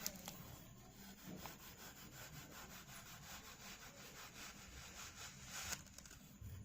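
Kinetic sand being cut and scraped with a tool: faint, quickly repeated rubbing strokes, with a click at the start and a sharper scrape near the end.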